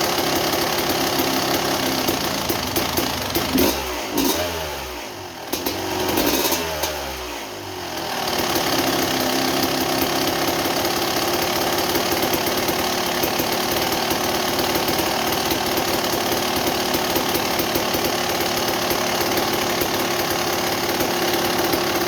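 1987 Kawasaki KX250's two-stroke single-cylinder engine running at idle while its idle is being tuned. Its speed sags and picks back up twice, about four to eight seconds in, then it settles into a steady idle. With the reed block now right way up instead of upside down, where it had been causing a super-rich condition, the engine runs far better than before.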